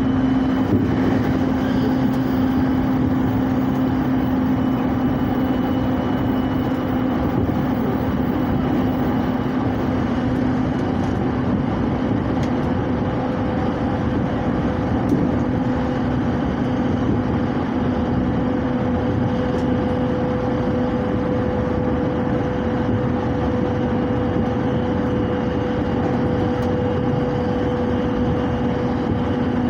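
Commuter train running at speed, heard from inside the carriage: a steady rumble of wheels on rail with a low, even hum.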